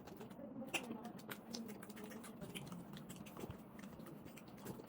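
Close-miked chewing and mouth sounds of someone eating beef khichuri: irregular small wet clicks and smacks over soft mashing.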